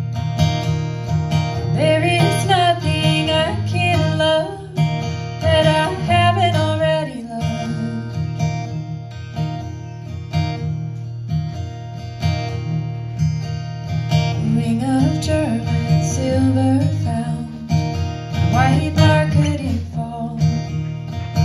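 Solo acoustic guitar played steadily, with a woman singing over it in several separate phrases, about two, six, fifteen and nineteen seconds in.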